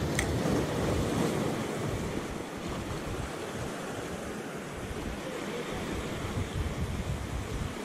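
Small sea waves washing and breaking over shoreline rocks, with wind buffeting the microphone. A short click comes just after the start.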